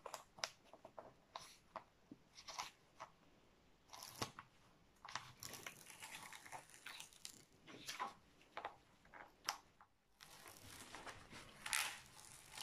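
Protective release paper being peeled back off the sticky canvas of a diamond painting kit: faint, irregular crackling and crinkling of paper, loudest near the end.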